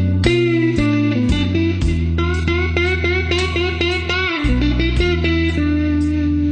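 Instrumental guitar music: an electric guitar plays a run of plucked single notes, some wavering in pitch, over held low bass notes.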